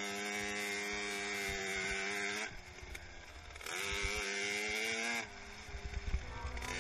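Small 50cc two-stroke dirt bike engine revved high and held at a steady pitch for about two and a half seconds, then dropping off. About a second later it rises again, holds, and drops off once more.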